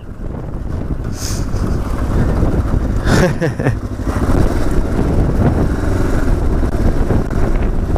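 Trail motorcycle engine running as the bike rides a gravel track, with wind rumbling on the microphone. The engine pitch rises and falls briefly about three seconds in.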